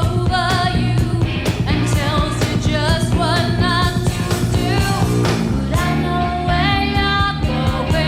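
Live pop-rock band playing: a woman sings the lead with vibrato over electric bass and a drum kit. The recording is an FM broadcast taped on cassette.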